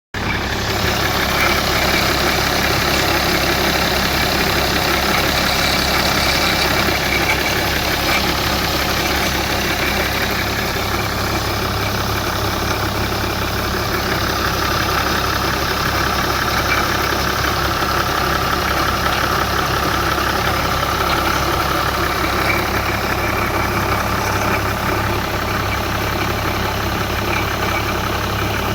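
BMW 535d's twin-turbo 3.0-litre straight-six diesel idling steadily, with a strange noise from the area of the EGR cooler whose cause the owner cannot identify.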